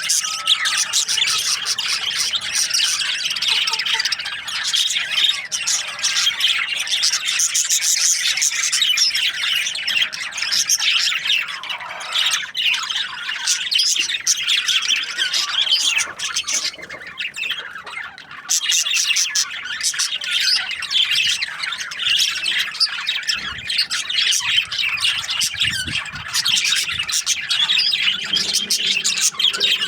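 A group of budgerigars chattering and squawking continuously, many fast overlapping chirps, thinning briefly a little past halfway.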